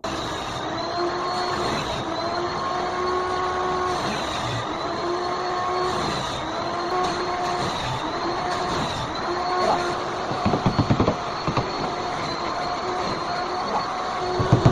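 A machine running steadily with a whine whose pitch dips and recovers every second or two, and a short run of rapid knocking about ten seconds in.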